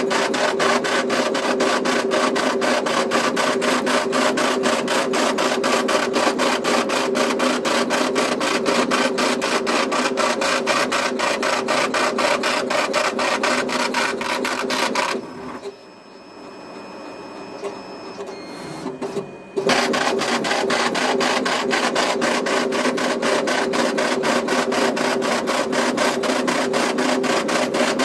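Index Everest-D V5 braille embosser embossing braille onto paper: a rapid, even hammering of the embossing head. It stops for a few seconds just past the middle, when only a faint hum and a few clicks are heard, then starts again.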